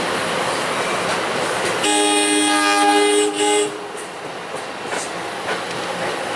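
Passing electric train running on the rails, with one horn blast of about two seconds from an NJ Transit Arrow III electric multiple-unit train, starting about two seconds in.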